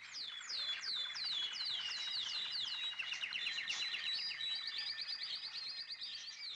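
A chorus of small birds chirping. Many quick, high, falling chirps overlap, and from about halfway through they turn into a faster, denser twittering.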